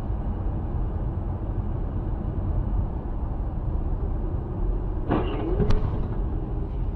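Steady road and engine noise of a car driving on a highway, heard from inside the cabin on a dash cam. About five seconds in, a brief sound with a wavering pitch and a sharp click cut in over it.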